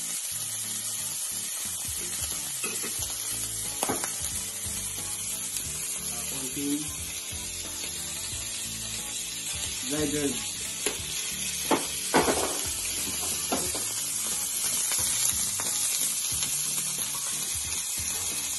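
Steak searing in hot oil in a stainless steel frying pan, a steady sizzling hiss, with a few sharp knocks about four and twelve seconds in.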